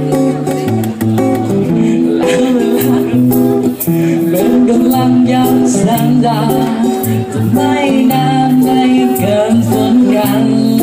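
Live music: a song played on guitar over a stepping bass line, with a steady light tick of percussion and a voice singing in places.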